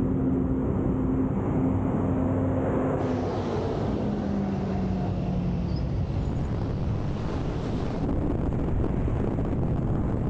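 Kawasaki Z650 parallel-twin motorcycle engine running under way over a steady rush of noise; the engine note drops about three to four seconds in.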